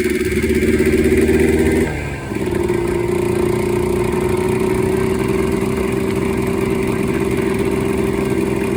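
Yamaha Blaster's 195cc single-cylinder two-stroke engine running at a steady throttle while being ridden. It drops off briefly about two seconds in, then picks back up. The top end is freshly rebuilt and is being run gently to break it in.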